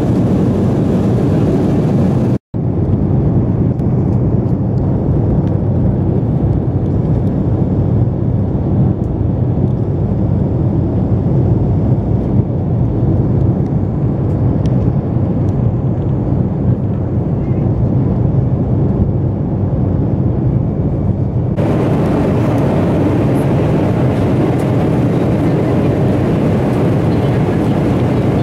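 Steady roar of a jet airliner's engines and airflow heard inside the cabin at cruise. A brief dropout comes about two seconds in, and the sound is duller until about three-quarters of the way through.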